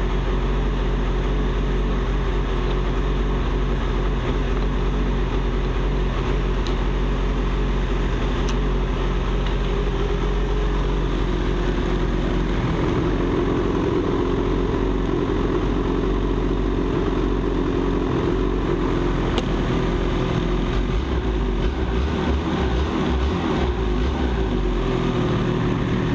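Ski-Doo Summit snowmobile's two-stroke engine running steadily at idle. Its sound shifts about halfway through and shifts again near the end.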